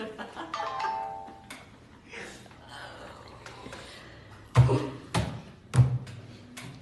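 Fists pounding a table three times in quick succession, about half a second apart, heavy thuds of an overwhelmed outburst of joy. A short voiced cry comes about a second in.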